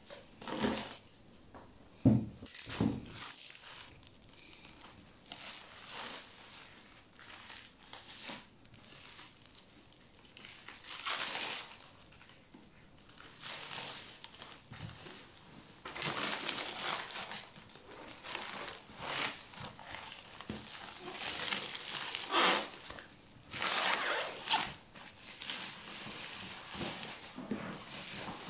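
Cardboard and black plastic wrapping being torn, crinkled and rustled as a boxed PC tower case is unwrapped and pulled out of its outer packaging, in irregular bursts with two sharp knocks about two to three seconds in.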